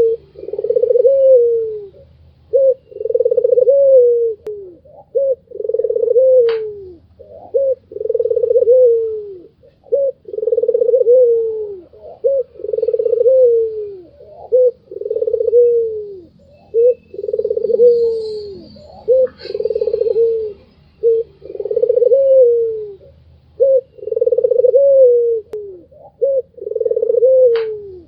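White (albino) Barbary dove cooing over and over: each call is a short note followed by a longer coo that drops in pitch at its end, repeated about every two seconds. Faint high chirps of other small birds and a couple of sharp clicks are heard now and then.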